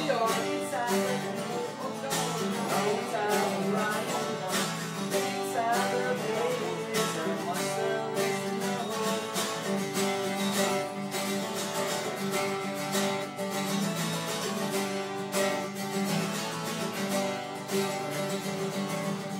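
Two acoustic guitars played together, strumming chords with picked lines over them.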